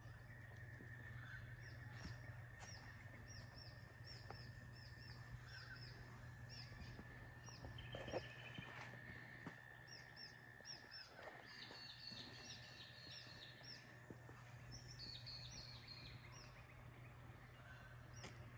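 Faint birds chirping outdoors in runs of short, quick, repeated chirps, over a low steady hum and a faint steady high tone.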